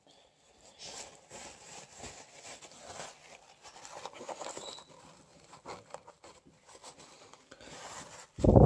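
Paper tissue rubbing and rustling as old thermal paste is wiped off an amplifier board's chip and then off fingertips: soft, irregular scrubbing. A brief loud burst near the end.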